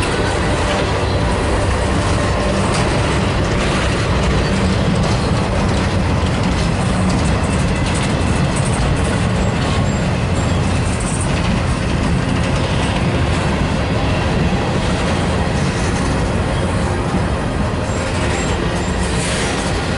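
Freight cars of a long train rolling past close by: a steady, loud rumble of steel wheels on the rails, with a few sharp clicks from the wheels.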